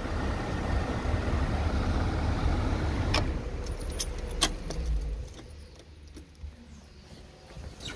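Steady rush of the car's HVAC blower pushing cold air through the dash vents, with the engine running underneath. A few sharp clicks come between three and four and a half seconds in, and about five seconds in the steady running noise drops away to a much quieter hum.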